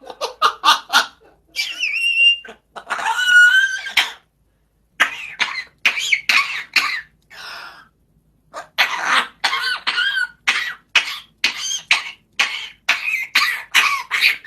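A parrot imitating a cough: runs of short, quick coughs, broken about two and three and a half seconds in by longer squeaky calls that slide in pitch.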